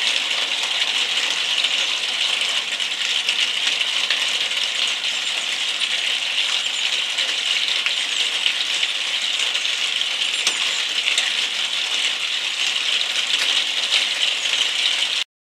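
Steady rain pattering, a dense spray of fine drop ticks that cuts off suddenly near the end.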